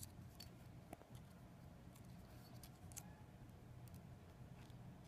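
Near silence: faint room tone with a few light clicks and ticks, about a second apart at times.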